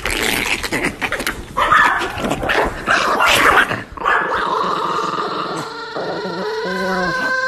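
Small dogs growling and yapping at each other in rough play, changing to a steadier high-pitched whining sound for the last few seconds.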